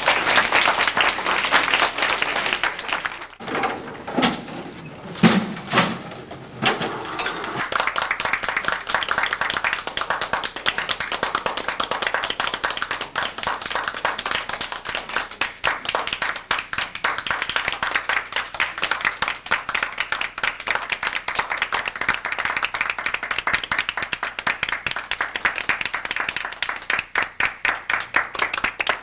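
A group of people clapping their hands as a performed piece: a dense patter of many claps, broken off briefly about three seconds in by a few separate louder sounds, then resuming and settling into clearer, evenly spaced claps near the end.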